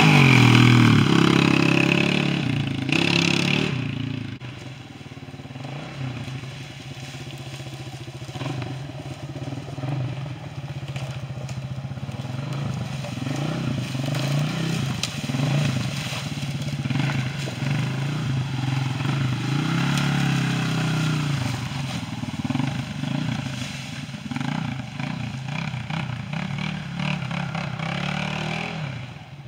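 Small youth ATV engine revving hard as it passes close by, then fading and running on with rising and falling revs as it climbs the slopes farther off, with scattered crackles and clatter from the tyres on dry leaves and sticks.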